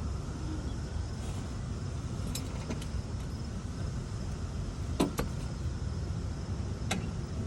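Steady low rumble of an idling truck engine, with a few sharp clicks and knocks about two and a half, five and seven seconds in.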